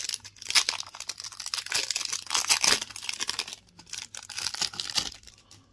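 Foil wrapper of a Topps Chrome trading-card pack being torn open and crinkled by hand, a dense crackling rustle that stops about five and a half seconds in.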